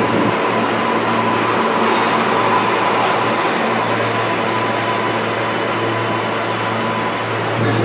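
R143 subway train pulling into the station, its cars rolling past and slowing with a steady rumble of wheels and running gear. A thin steady whine runs through the first few seconds.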